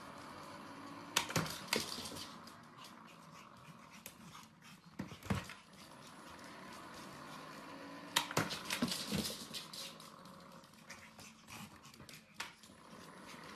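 Pomeranian puppy panting and moving about on a hard floor around an automatic ball-launcher toy. Scattered clicks are broken by several sharp knocks, the first about a second in and others near the middle and towards the end.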